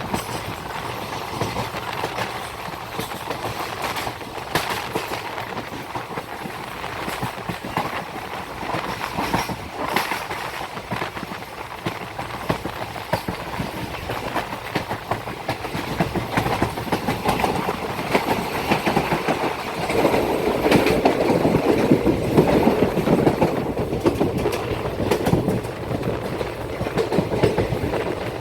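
Passenger express train running along the line, heard from on board: steady rumble of the coaches with the wheels clattering over rail joints, growing louder about two-thirds of the way through.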